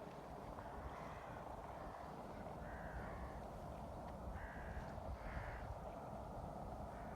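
A bird calling about four times in short calls, over a steady low background hiss.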